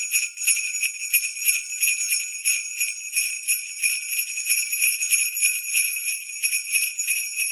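Sleigh bells jingling, shaken in a quick, steady rhythm.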